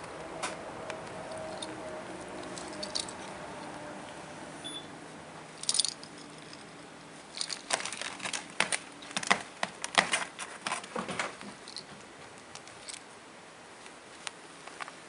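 Scottish Fold kittens scuffling and pouncing on a quilted pad among small toys: soft rustling, then a rapid run of clicks, rattles and knocks for a few seconds past the middle, with scattered ones before and after.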